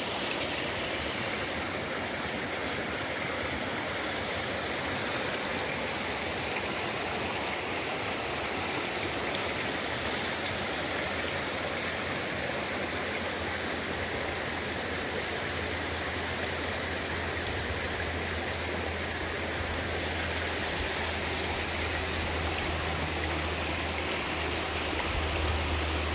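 A stream flowing steadily: a continuous rush of running water.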